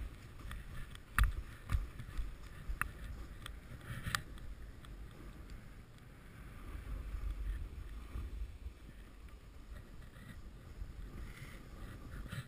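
Snowboard sliding and turning over snow: a continuous scraping hiss with low rumble, broken by a few sharp knocks in the first four seconds, the loudest about a second in.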